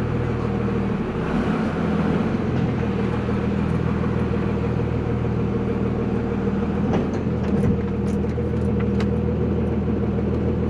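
Cummins diesel engine running at low speed under light load, its note shifting slightly about a second in. A few faint ticks are heard later on.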